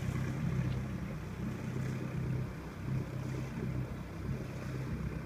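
Engine of a small fishing boat running steadily at low speed as the boat motors out of the harbour, a low throb that swells and fades slightly.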